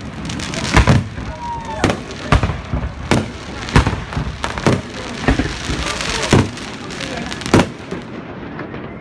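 Fireworks salute going off: a quick series of sharp bangs, roughly one or two a second, over a continuous crackling hiss.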